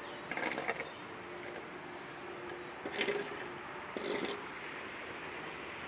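Dry plant stems rustling and crackling as they are handled and cut back, in three short spells: about half a second in, at three seconds and at about four seconds.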